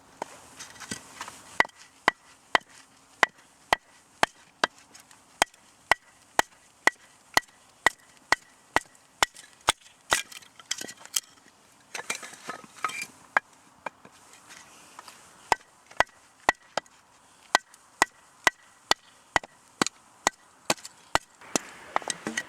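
Firewood being chopped or split with a blade: sharp, evenly spaced strikes about two a second, each with a slight ring. They pause briefly about two-thirds of the way through, then start again.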